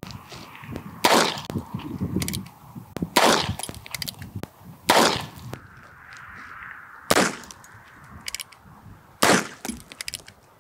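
.22 Magnum rounds fired from a single-action rimfire revolver at a cinder block: five sharp shots, about two seconds apart.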